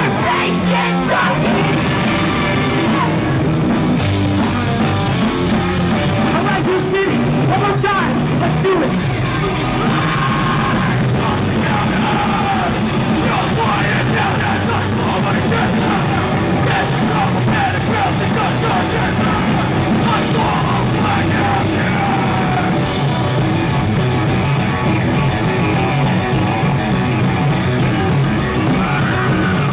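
A rock band playing live: electric guitars, bass guitar and a drum kit, with a singer's vocals that are partly yelled.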